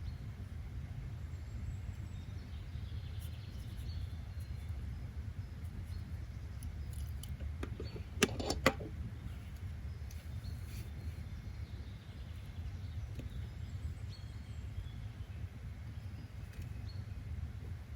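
Steady low rumble of outdoor background noise with faint bird chirps, broken about eight seconds in by a short cluster of sharp clicks, the loudest sound here.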